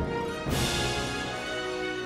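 Orchestral theme music: a crash about half a second in, then held chords over a low drone.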